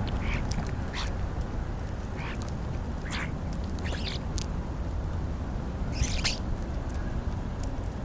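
European starlings giving short harsh calls, about seven of them spread over the seconds, the loudest pair about six seconds in, over a steady low rumble.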